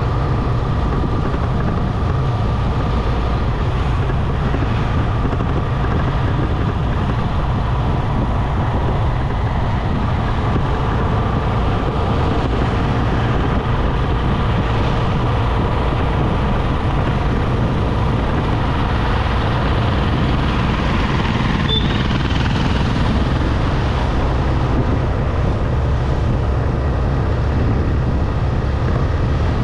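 Steady engine and wind rumble from a moving motorcycle, with road noise. A single short high click sounds about three-quarters of the way through.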